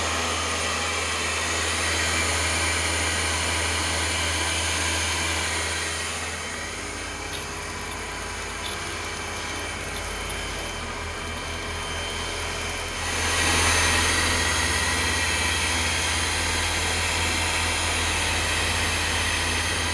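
Kärcher K3 electric pressure washer running steadily, its motor humming under a wide hiss. It drops in level about six seconds in and comes back louder near the end.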